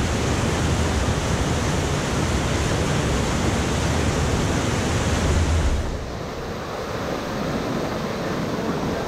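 Whitewater rapids rushing over a rocky drop: a loud, steady roar of churning water. About six seconds in it drops in level and loses much of its low rumble and high hiss.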